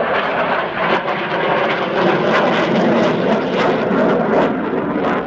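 Eurofighter Typhoon's twin EJ200 turbofan engines passing overhead: a loud, steady rushing jet noise, with sharp crackling from about two seconds in.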